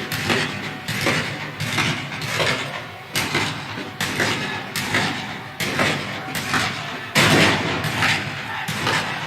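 19th-century battle ambience: shots fired every half second to a second over a continuous din, with a heavier boom about seven seconds in.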